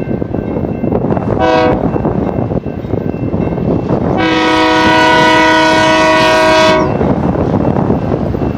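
BNSF GE Dash-9-44CW locomotive's multi-chime air horn sounding for the grade crossing: a short blast about a second and a half in, then a long blast of about two and a half seconds. Under it runs the steady rumble of the approaching train.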